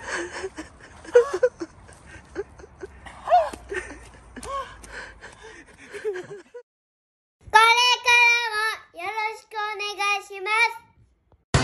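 Short excited shouts and laughter from men's voices. After about a second of silence comes a high, child-like sung phrase of held, steady notes with short breaks.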